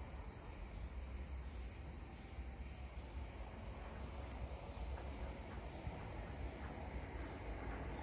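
Steady high-pitched chorus of insects in the scrub and trees, with a low rumble underneath.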